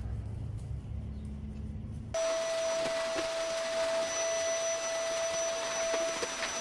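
A low engine rumble for about two seconds, then an abrupt cut to a vacuum cleaner running, a steady motor whine over a rushing hiss.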